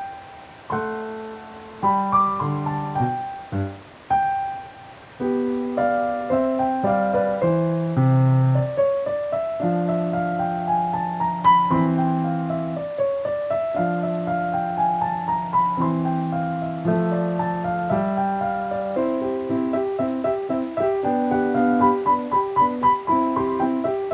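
Background piano music: sparse chords at first, then flowing arpeggios that rise and fall, ending in steady repeated notes.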